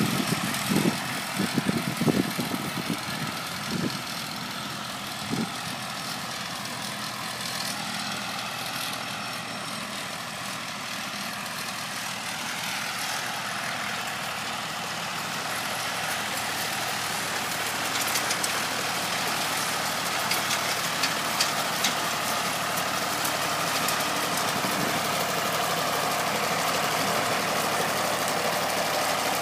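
Vintage three-cylinder diesel tractor engine running steadily while working a hay field, getting louder from about halfway through as the tractor comes closer. There are irregular low knocks and rumbles in the first few seconds.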